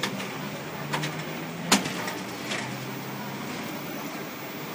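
Hong Kong tram cab noise: a steady low hum with a few sharp clicks, the loudest about two seconds in.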